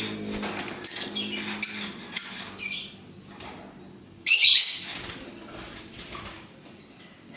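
Lovebirds calling: three sharp, high-pitched chirps about a second in, half a second apart, then a louder, longer shrill call about four seconds in, with softer chatter between.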